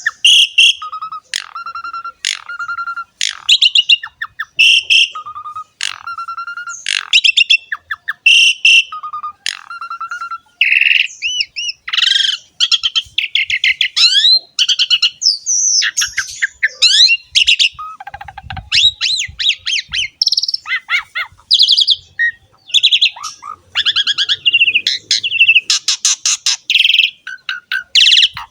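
Asian pied starling (jalak suren) singing loudly and vigorously. For the first ten seconds or so it repeats one phrase about every second and a bit: a low whistle joined to harsh, scratchy higher notes. After that the song turns faster and more varied, a chatter of rising and falling whistles.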